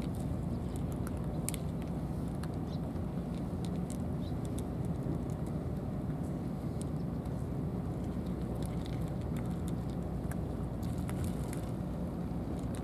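Cats eating from food trays: small crunching clicks scattered irregularly over a steady low outdoor rumble.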